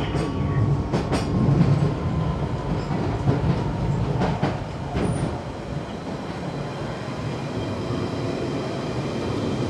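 London Underground Central line 1992 Stock train running on its rails: a steady rumble with a few knocks from the wheels in the first seconds.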